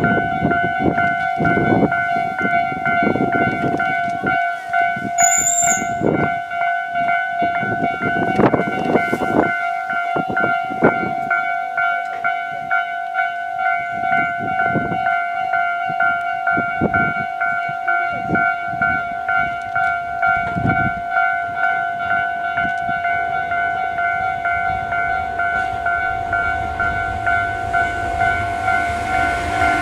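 Railway level-crossing warning bell ringing in a steady, rapidly repeated two-tone ding, with irregular low rumbles underneath. Near the end a train's running noise builds up.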